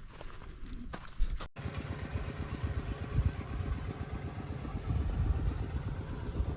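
A small motor-vehicle engine, motorcycle-like, running steadily after an abrupt cut about a second and a half in; its low rumble swells near the end.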